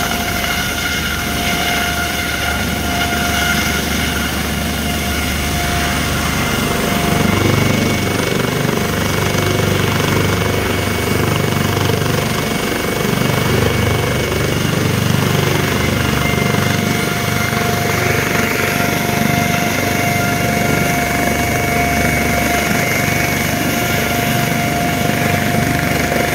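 Medical helicopter running on the ground with its rotor turning: a steady high turbine whine over a low, uneven rotor rumble.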